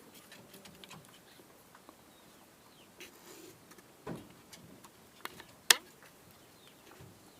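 A rabbit doe sneezing: a few short, sharp sneezes, the loudest about three quarters of the way through. The sneezing comes from hay dust in her nose, not from illness.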